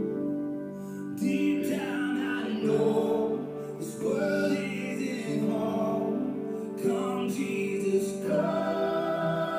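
A slow song: singing over sustained instrumental chords.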